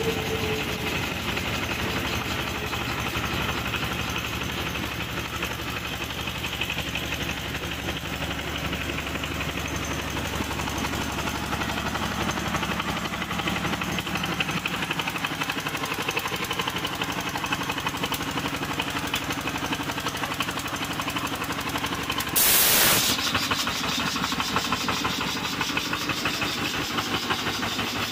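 Single-cylinder stationary diesel engine running steadily, driving a belt-driven air compressor. About 22 seconds in comes a short, loud hiss of air.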